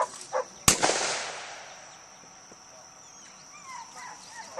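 A single gunshot about two-thirds of a second in, a sharp crack that echoes and fades away over a second or so, just after two short calls. In a retriever hunt test this is the shot fired as a mark is thrown for the dog.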